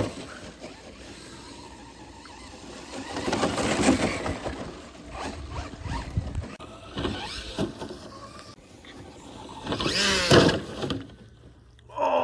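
Traxxas Velineon brushless motor in a 1/10-scale RC rally car whining in several bursts of throttle as it drives over short grass, with tyre and wind noise between the bursts.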